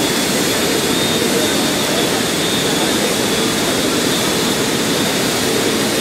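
Steady, loud industrial noise of steel-plant plant and machinery at an open hearth furnace being charged, with two faint steady hums running through it.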